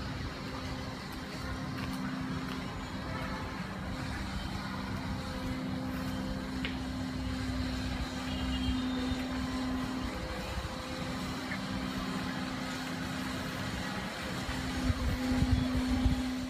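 A motor running with a steady hum over a low rumble, getting louder and more uneven near the end.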